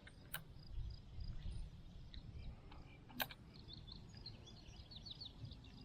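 Quiet outdoor ambience with a low rumble and many faint, short, high chirps repeating throughout. Two sharp clicks come through, one just after the start and a louder one about three seconds in.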